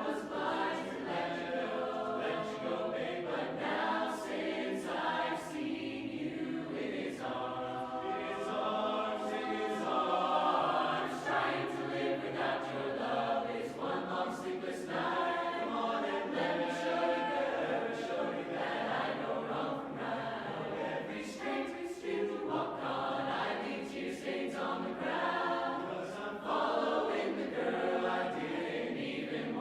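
Youth mixed barbershop chorus singing a cappella in close four-part harmony, with no instruments.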